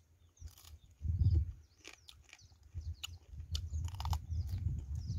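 Close-up chewing of crispy fried field mouse: irregular crunches and wet mouth clicks over low, uneven mouth noise.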